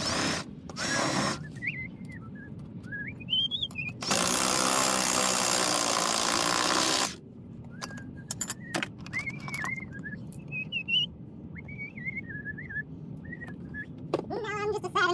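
A man whistling a tune to himself, a wavering high melody. For about three seconds in the middle a loud steady hiss covers it, starting and stopping abruptly, and a few sharp clicks follow.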